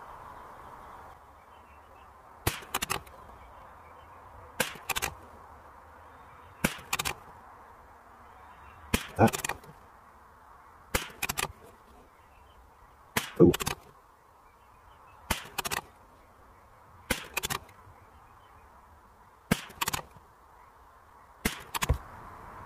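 Ten shots from a Savage Mark II FV .22LR bolt-action rifle, fired steadily about two seconds apart. Each is a sharp crack followed closely by a second.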